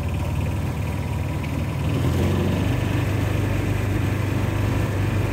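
John Deere Gator utility vehicle's engine running steadily as it drives across grass, getting a little louder about two seconds in.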